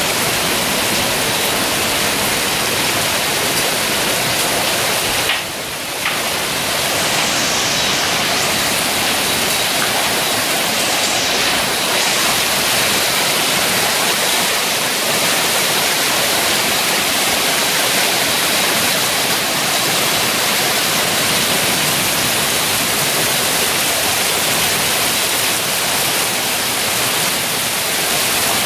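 Hailstorm: hail and heavy rain falling hard, a dense, steady hiss that dips briefly about five seconds in.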